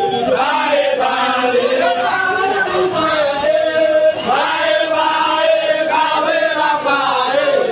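A crowd of men chanting together in unison, many voices holding long sung notes that change pitch every second or so.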